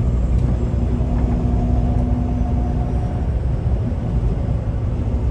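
Semi truck heard from inside the cab while driving on the highway: a steady low rumble of engine and road noise, with a faint steady hum that fades about three seconds in.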